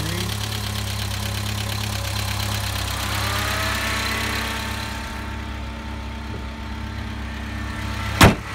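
The 1992 Talbot Express camper van's engine idling steadily. A single sharp bang comes near the end.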